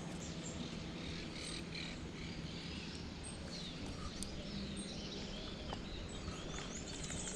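Outdoor ambience of several small birds chirping and calling, short rising and falling chirps scattered throughout, over a steady background hiss with a faint low hum.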